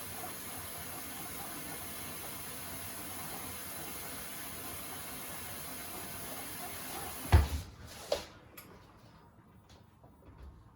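Beko WTK104121A washing machine taking in water for a rinse, a steady rushing hiss of the fill. About seven seconds in there is a loud thump, then a smaller knock, and the rush of water stops.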